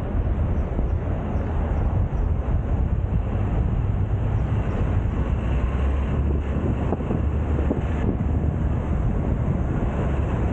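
City driving heard from a camera on the car's roof: a steady low rumble of wind on the microphone mixed with road and traffic noise.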